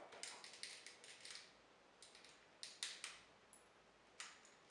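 Faint, scattered plastic clicks and taps from the MakeToys Galaxy Meteor transforming figure as its spring-loaded shin piston buttons are pressed and the leg parts are worked by hand; otherwise near silence.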